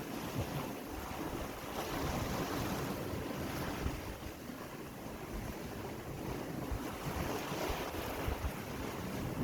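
Sea waves washing on the shore, the surf swelling twice, with wind buffeting the microphone.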